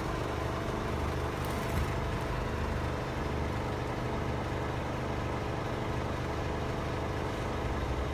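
Scania R450's 13-litre inline-six diesel idling steadily, heard from inside the truck's cab.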